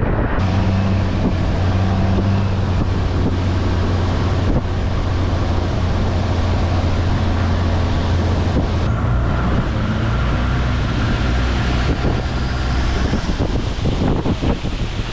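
A boat's engine drones steadily as the boat cruises, over the rush of wind buffeting the microphone. The engine's pitch shifts about nine seconds in, and the wind grows gustier near the end.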